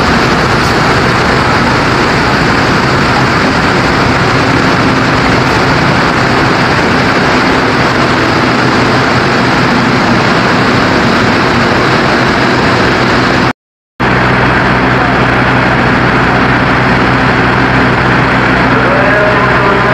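Diesel locomotive engine running steadily at idle: a low, even hum under a constant hiss. The sound drops out for a moment about two-thirds of the way through.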